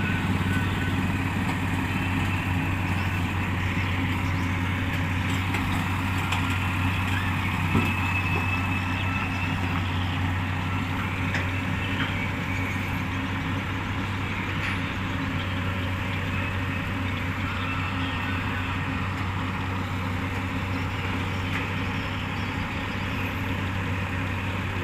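Heavy diesel engine running steadily at an even, low speed, with one brief knock about eight seconds in.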